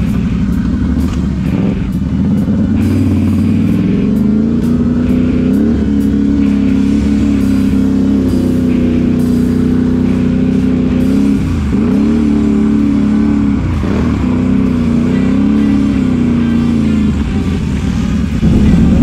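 Can-Am Renegade XMR 1000R ATV's V-twin engine running under load on a muddy trail, mostly holding a steady pitch, with quick throttle drops and blips about two-thirds of the way through.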